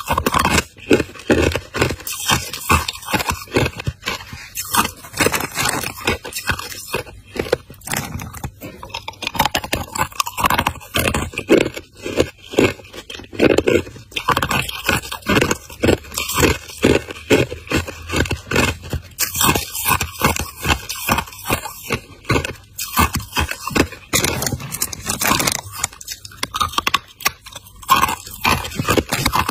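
Hard ice chunks being bitten and chewed close to the microphone: a fast, unbroken run of sharp crunches and cracks, several a second.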